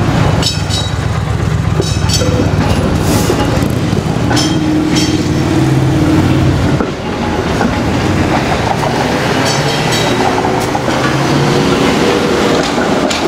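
Toronto streetcar running on its rails, heard from inside: a steady low motor hum with the wheels rumbling over the track and a few sharp clicks and rattles. In the second half a motor whine rises slightly in pitch as the car picks up speed.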